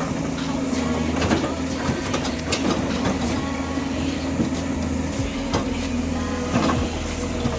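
Komatsu hydraulic excavator's diesel engine running steadily under work, with irregular metallic clanks and knocks throughout.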